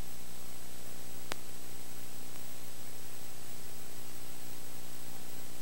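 Steady hiss with a low electrical hum and a faint high whine under it, broken by a single sharp click a little over a second in.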